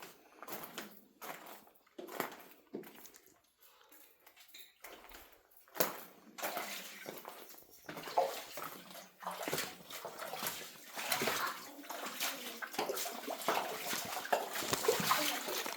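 Water sloshing and splashing in a sea-cave pool. Sparse and faint at first, then denser and louder from about six seconds in.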